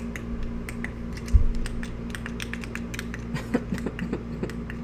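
Scattered light clicks and taps at an uneven pace over a steady low hum, with one dull thump about a second and a half in.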